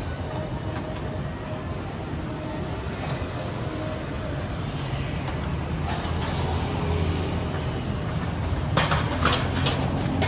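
City road traffic running past as a steady low rumble, growing louder near the end as a vehicle draws close. A few sharp clicks come about nine seconds in.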